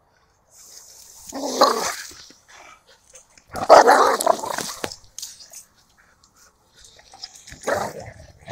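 Dogs play-fighting, growling and barking in three short bouts, the loudest about four seconds in.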